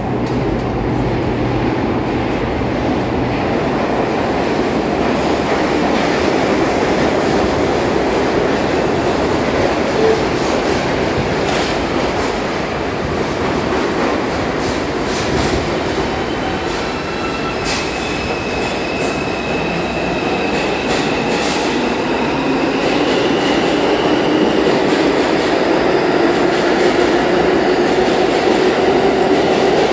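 R142 subway train accelerating out of a station: steady rumble and rattle of steel wheels on rail, with clicks over rail joints through the middle and a thin high squeal for several seconds partway through. Over the last several seconds the traction motors' hum rises in pitch as the train gains speed.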